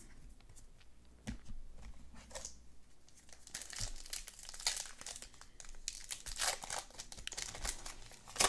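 Trading-card pack wrapper crinkling and tearing as a pack is opened and handled: a run of sharp crackles that gets busier about three and a half seconds in.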